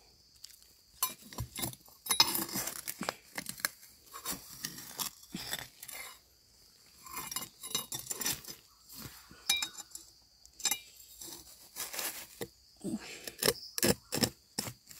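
A long knife blade digging into gritty soil between rocks to free termite mushrooms: irregular scraping, with sharp clicks and clinks as the metal catches on grit and stone.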